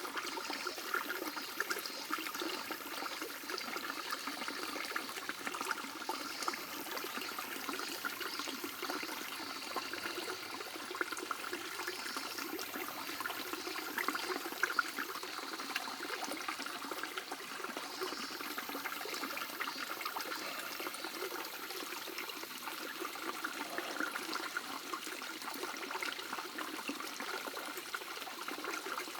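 Shallow mountain stream babbling and trickling over stones, steady throughout.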